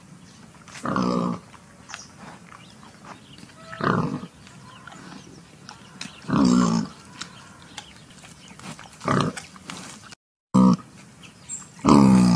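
Wild boar giving short, pitched grunts, one every one to three seconds.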